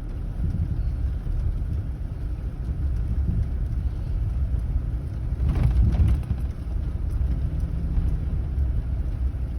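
Steady low rumble of a car driving, road and engine noise, with a brief louder whoosh a little past halfway.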